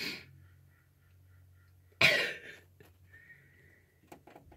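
A person coughs once, sharply, about two seconds in, after a softer breathy sound at the start.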